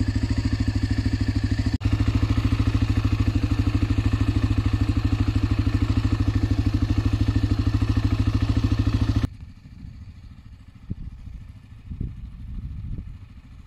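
Honda NX250 Dominator's single-cylinder engine idling with a steady, even pulse, with a brief dropout about two seconds in. It cuts off abruptly after about nine seconds, leaving only faint low rumbles.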